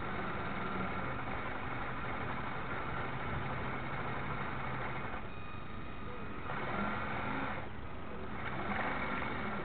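Steady motor hum with a rushing noise, picked up aboard a radio-controlled model warship with its onboard drive running. The higher rushing part drops away twice, briefly.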